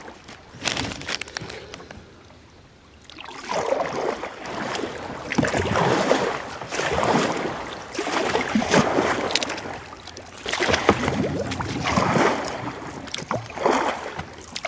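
Kayak paddle strokes in river water: a splash and drip-off about every one and a half seconds, after a short lull near the start.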